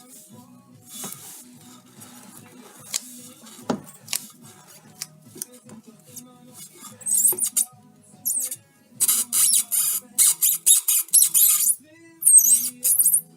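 Worn universal joint (cross joint) of a BMW E46 320d's cardan shaft at the differential end, squeaking and creaking. The sharp, high-pitched squeaks repeat irregularly from about seven seconds in.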